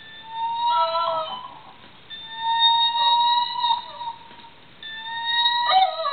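Electric guitar playing three long, high sustained notes, each held for a second or more and bent at its end, with short gaps between them.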